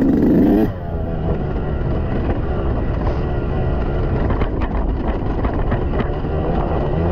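Yamaha YZ125X's single-cylinder two-stroke engine revving hard for a moment, then dropping off to a lower, wavering note about a second in, with scattered sharp knocks.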